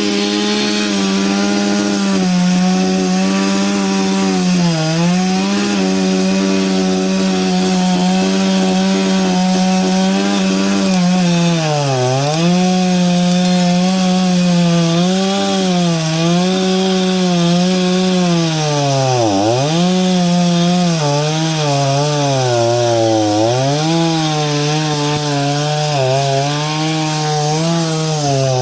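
Two-stroke chainsaw running at full throttle while cutting through the trunk of a fallen tree. Its engine pitch sags each time the chain bites under load, several times over, most deeply about two-thirds through.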